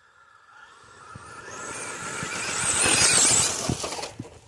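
Traxxas Sledge Hammer RC monster truck running at full throttle, its drivetrain and tyre noise building steadily to a peak about three seconds in, then falling away.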